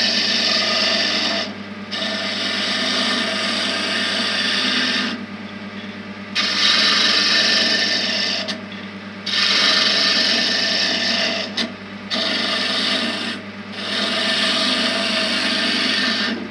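Roughing gouge cutting very dry, brittle oak pen blanks spinning on a wood lathe set at about 1300 RPM. It is a steady cutting noise in five passes of a few seconds each, broken by short pauses in which only the lathe motor's steady hum remains.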